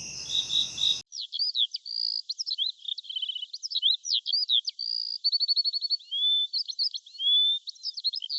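A songbird singing a rapid, varied song of chirps, short trills and slurred whistles. It is preceded in the first second by a steady, pulsing high chirring of insects that cuts off abruptly.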